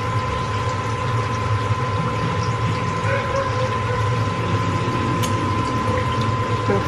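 Steady mechanical hum with a constant high whine running under it, and a couple of faint light clicks near the end.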